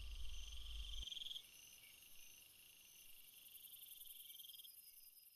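Crickets chirping in repeated trilling pulses, a night ambience, with a low rumble underneath that stops about a second in; the chirping grows fainter about a second and a half in.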